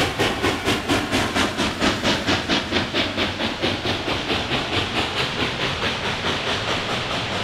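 Reading T-1 No. 2102, a 4-8-4 steam locomotive, departing with its train: sharp, even exhaust chuffs from the stack at about four a second. The chuffs fade as the engine draws away, and the tender and passenger cars rolling past leave a steadier rumble.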